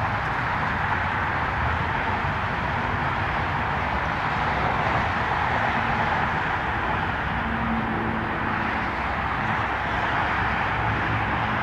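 Jet airliner engine noise: a steady rushing sound with a low rumble, and faint low hums coming in during the second half.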